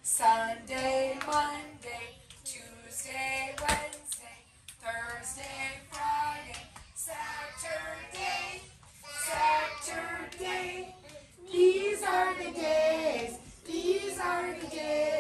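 Young children and a woman singing a song together, with one sharp click about four seconds in.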